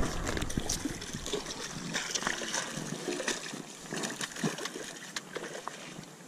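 Water splashing beside a wooden dugout canoe as a fish hooked on a handline thrashes at the surface: a loud splash at the start, then sloshing and trickling with scattered small knocks.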